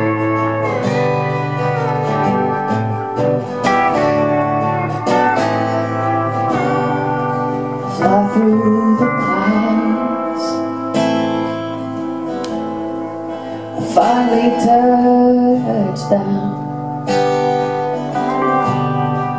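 Live performance of a slow song: guitar accompaniment with a woman singing into a microphone, her voice gliding on long held notes.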